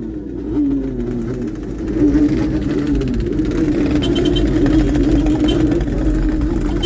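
Motorcycle engine running, its pitch wavering up and down.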